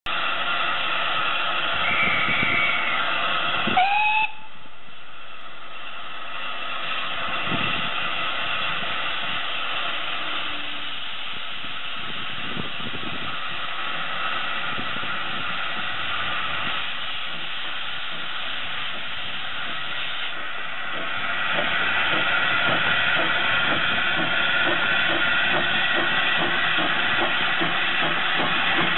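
Industrial 0-4-0 saddle tank steam locomotive hissing steam, with a short whistle blast about four seconds in. Later it pulls away, its exhaust beats growing louder about two-thirds of the way through.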